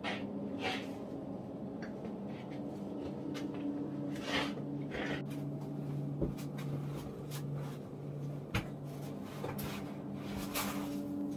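Irregular scraping, shuffling and knocking of bodies, gear and boots against rock as people scramble through a tight cave passage. Underneath is a low sustained hum that changes pitch a few times.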